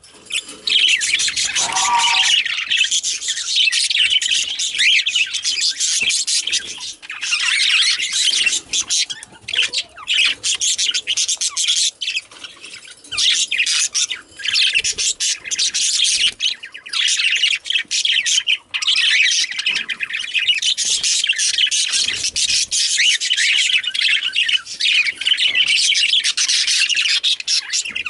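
Male budgerigars warbling and chattering, a dense run of rapid high chirps and squawks with a few short pauses.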